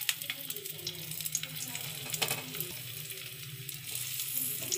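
Stuffed small brinjals sizzling in hot oil, a steady crackle with a few sharper clicks as more brinjals are laid into the pan.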